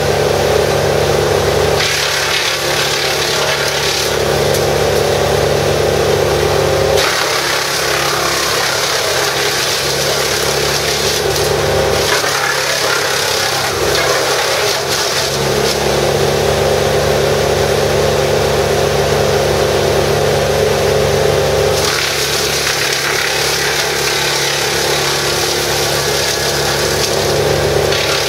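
Vermeer BC1000XL drum brush chipper running at full speed, its engine steady underneath while branches are fed in and chipped. The harsher chipping noise comes and goes in several spells as pieces of wood pass through the drum.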